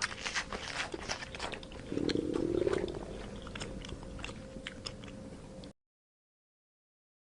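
Rapid, irregular crunching clicks of an animal chewing, with a brief louder low-pitched sound about two seconds in. The sound cuts off suddenly after about five and a half seconds.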